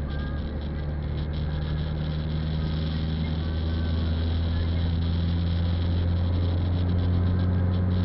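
Car engine heard from inside the cabin, pulling steadily, its hum rising slowly in pitch and growing louder as the car accelerates, over tyre noise on a wet road.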